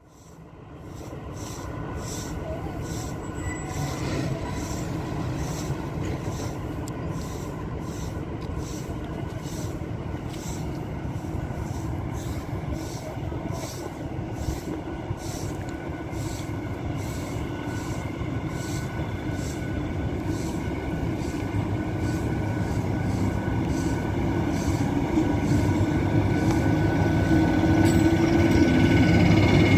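MÁV class V43 electric locomotive hauling passenger coaches into the station at low speed, growing steadily louder as it comes close. The rumble of the running gear carries a regular clicking about twice a second and a few steady high whining tones.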